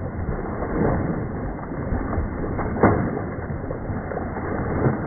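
Water splashing in a shallow stream as a person throws and slaps it with both hands: a dull, muffled rushing with a few sharper splashes, the loudest about three seconds in.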